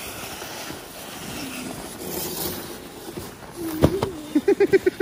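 Sled sliding over snow with a steady scraping hiss and a brief shout. A thump comes a little under four seconds in, then a quick burst of laughter near the end.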